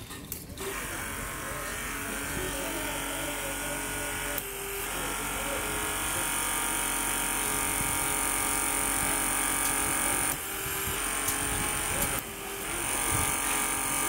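Electric hydraulic pump of a bolt-torquing machine running steadily while its pressure is set for the tightening, about 150 bar. Its sound shifts briefly a few times, about four seconds in and twice near the end.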